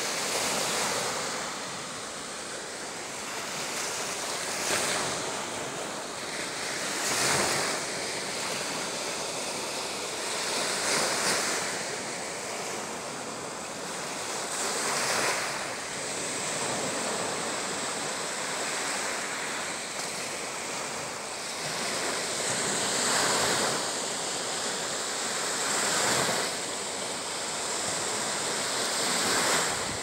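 Small waves breaking and washing up on a sandy beach, the surf swelling louder every few seconds.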